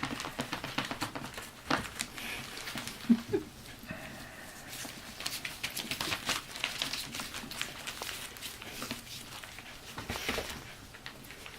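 Three-and-a-half-week-old Cairn terrier puppies moving about, a patter of small scratches, clicks and rustles, with a brief low squeak about three seconds in.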